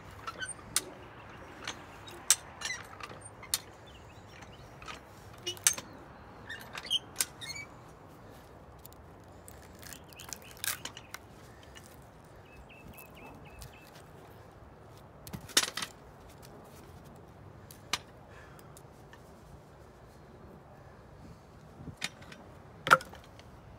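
Hi-lift farm jack with a homemade splitter wedge forcing apart a wet red oak log: scattered sharp clacks from the jack's ratchet and cracks of the wood giving way as split pieces drop off, the loudest near the end.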